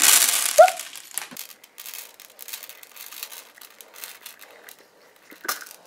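Small purple beads pouring out of a squeezed squishy ball and scattering onto a hard tabletop: a dense clatter at first that thins into scattered clicks and fades away.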